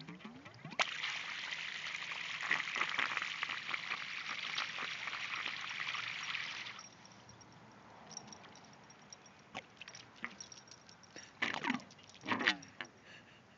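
Water spurting from a sump pump's discharge onto the wet pavement of a street gutter: a steady splashing hiss that starts about a second in and cuts off suddenly near seven seconds, as the pump's discharge stops. A few short splashy sounds come near the end.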